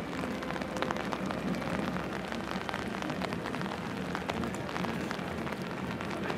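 Steady rain falling on umbrellas and wet cobblestones, with many small drop ticks through a continuous hiss.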